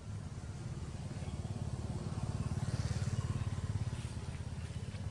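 Engine running with a low, even pulsing, growing louder to a peak about three seconds in and then easing off, like a vehicle passing by.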